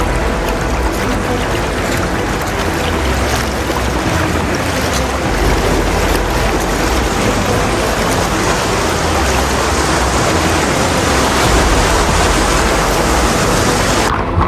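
Rushing river water in a choppy rapid, with wind buffeting the microphone as a boat runs through it. A loud, steady rush with low gusty rumbles.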